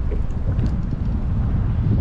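Wind buffeting the microphone: a loud, gusty low rumble.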